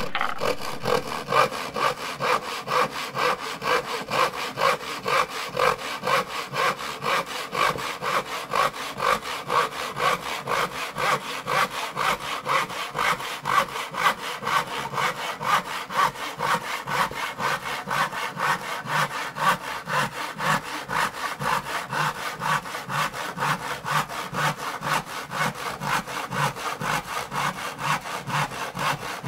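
A saw cutting wood in an even, unbroken rhythm of strokes, about two to three a second.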